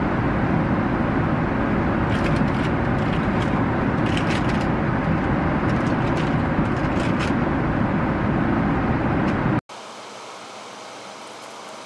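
Steady airliner cabin noise in flight: a deep, even rush of engines and airflow, with faint clicks and rustles of small toys being handled on top. It cuts off suddenly about ten seconds in, and a much quieter steady hiss follows.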